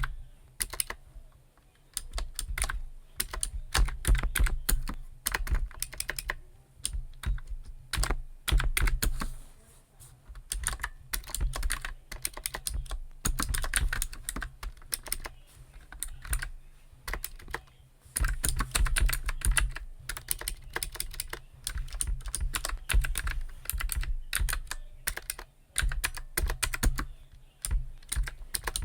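Typing on a computer keyboard in quick runs of keystrokes with brief pauses. Each key gives a sharp click over a dull thud.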